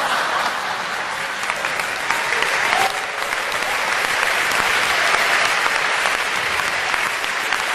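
Large audience applauding in a steady round of clapping.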